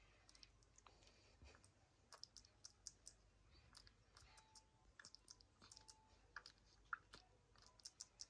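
Near silence broken by faint, irregular small clicks and ticks from a baby hamadryas baboon grooming a kitten, picking through its fur.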